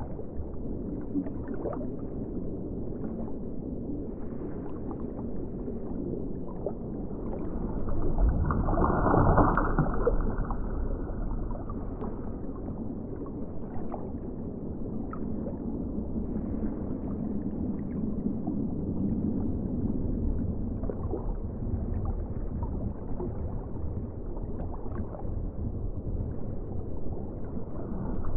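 Underwater ocean ambience: a muffled, low rush of moving water with fine bubbling and crackling. It swells louder for a couple of seconds about a third of the way in.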